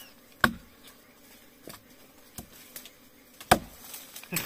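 Machete chopping into a tree trunk to open a wild bees' nest in its hollow: a few sharp, separate strikes, the two loudest about half a second in and about three and a half seconds in.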